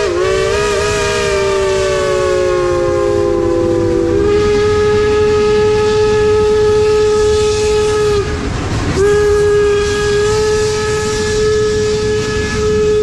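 Steam whistles of a multi-engine train of geared logging steam locomotives blowing as it passes: first several tones at once, all sliding down in pitch over about four seconds, then a single steady whistle that breaks off briefly just past the middle and sounds again. Underneath, the locomotives run with a steady hiss and rumble.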